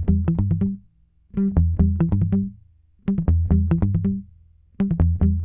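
Instrumental music: short phrases of quick plucked notes over a bass line, broken by brief pauses about every second and a half.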